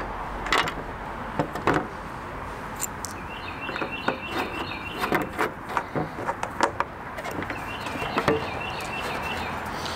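Small clicks and taps of a hex key and bolts being worked loose from a motorcycle's stock plastic windshield. A bird chirps in two short runs of quick repeated notes in the background.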